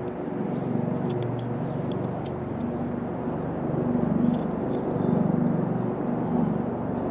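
Steady low rumble of distant engines, with a wavering hum, and a few faint short high clicks over it.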